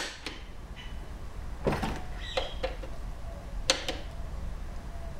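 Small hand ratchet working the 8 mm bolts that pull a Prius high-voltage battery pack's modules tight: a few separate metallic clicks and clacks, with a quick double click about halfway through.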